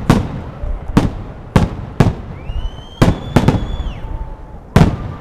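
Fireworks display: aerial shells bursting in a rapid, irregular series of about seven loud booms. A high rising whistle, held for about a second and a half, sounds through the middle.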